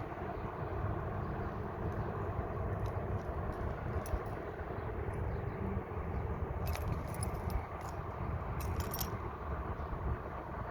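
Steady low rumble of traffic, with brief clusters of light metallic jingling clicks about seven and nine seconds in.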